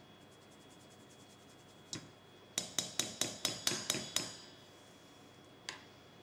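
Fine-mesh metal flour sieve being tapped to knock the last flour through into a stainless steel bowl: a quick run of about eight sharp metallic taps, some five a second, with a single tap shortly before and another near the end.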